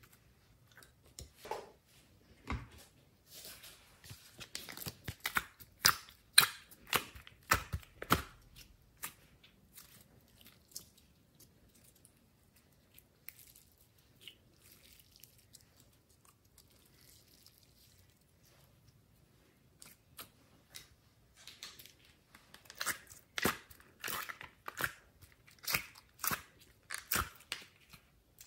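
Hands squeezing and kneading glossy slime, making sticky wet pops and clicks. They come in two busy flurries with a quieter stretch in between.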